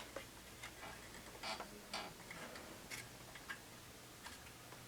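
Faint, irregular light clicks and taps, the sharpest at the very start, as a radio chassis and its parts are handled and turned over.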